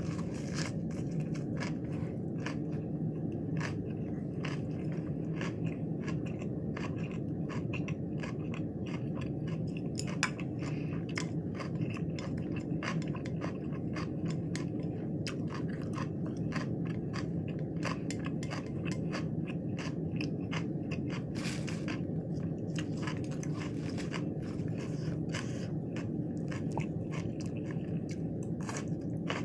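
Close-miked chewing of a crunchy lettuce wrap with raw vegetables: many short, crisp crunches one after another, over a steady low hum.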